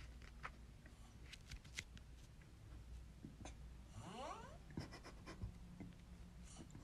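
Faint snoring from a sleeper: one wheezy breath with a rising whistle about four seconds in, amid soft scattered clicks.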